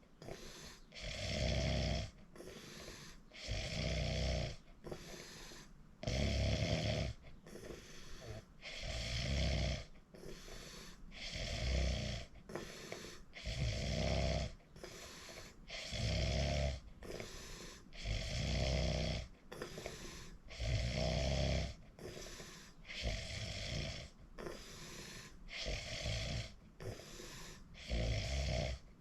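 A sleeping person snoring in a steady rhythm: a loud, low snore about every two and a half seconds, with breathy sound between the snores.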